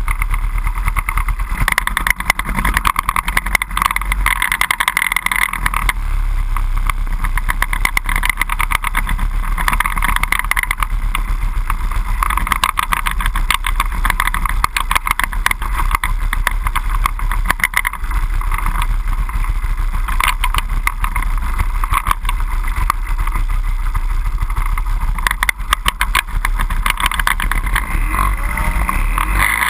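Outboard engines of 25 hp racing boats running at speed: a loud, continuous engine note that swells and fades every few seconds.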